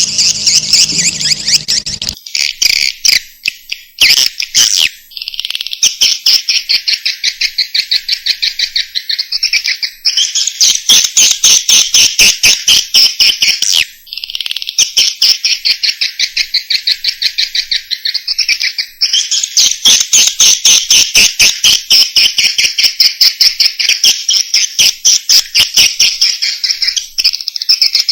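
Swiftlet calls: rapid, buzzy chirping trills repeating almost without pause, with a few brief breaks. This is a swiftlet-house call recording of the kind played to lure swiftlets in to roost and nest.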